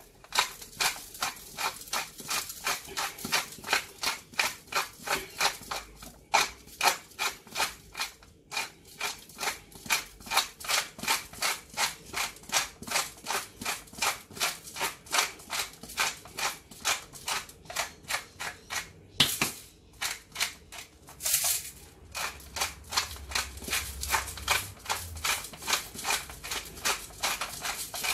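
A hand-twisted spice mill grinding in steady strokes, a crunchy click about three times a second with a few short pauses.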